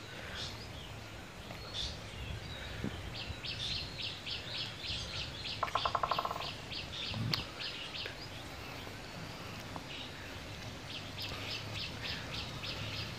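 Small birds chirping in quick runs of high notes, about five a second, twice over. About six seconds in there is a brief, louder rapid pulsing sound.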